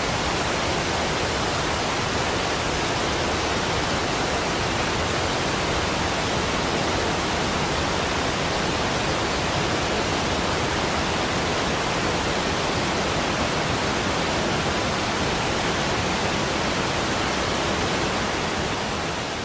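Waterfall: a steady, even rush of falling water, starting to fade out near the end.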